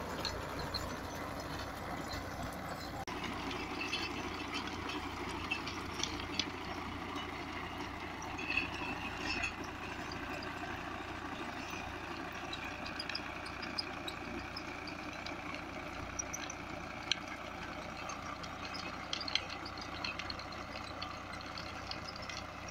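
Swaraj 744 FE tractor's three-cylinder diesel engine running steadily as it drives a Shaktiman 32-blade rotavator through dry soil, with the rotavator churning. Scattered sharp clicks sound over the steady running.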